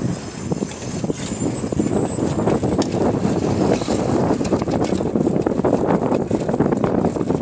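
Wind buffeting the microphone on a moving motorcycle, a steady rushing ride noise with the bike's running sound mixed in.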